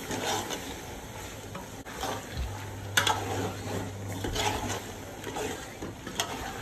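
Steel spoon stirring chicken pieces through thick, wet masala in an aluminium pot: soft squelching scrapes, with sharp clinks of the spoon against the pot, the loudest about three seconds in and another near the end.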